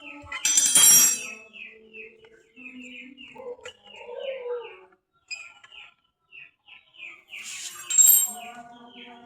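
Small birds chirping steadily in quick repeated notes, with two loud metallic clatters, one about a second in and one near the end.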